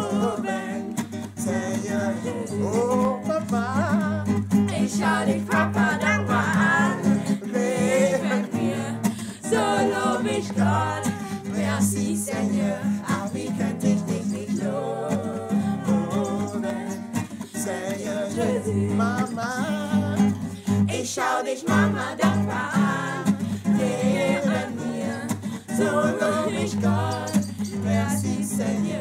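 Song with voices singing a melody to acoustic guitar, over a steady low accompaniment.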